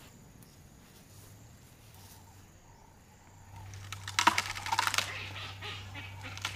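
African elephant moving through long grass close up: crackling, rustling and crunching of grass that starts about halfway through, over a faint steady low hum.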